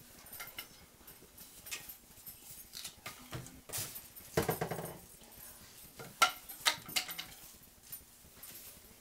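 Plastic deco mesh rustling and crinkling as it is handled and fluffed into bows, with a few sharp clicks, the loudest about six to seven seconds in, and a short pitched sound about four and a half seconds in.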